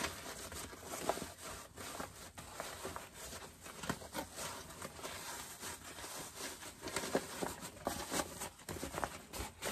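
Irregular rustling and scraping of fabric being handled: waterproof canvas lining and quilt-cotton exterior being pushed and pulled through a turning opening by hand.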